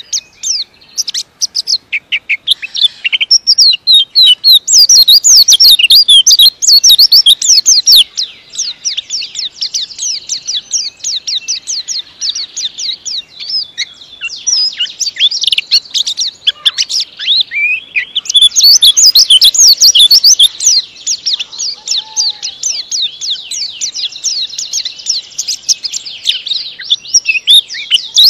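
White-eye (pleci) singing a long, fast song of high, tightly packed twittering notes. It is patchier for the first few seconds, then runs on almost without a break, loudest a few seconds in and again past the middle.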